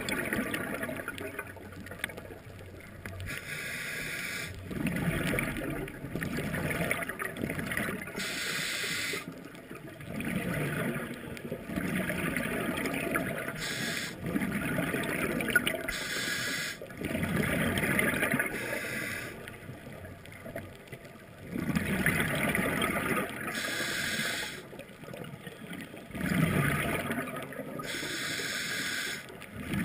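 Scuba diver breathing through a regulator underwater: a hissing inhale alternates with a gurgling rush of exhaled bubbles, repeating every few seconds.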